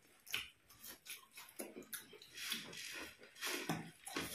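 Two people eating puffed rice by hand: irregular crunching and rustling as the dry muri is chewed and mixed in the plates with the fingers.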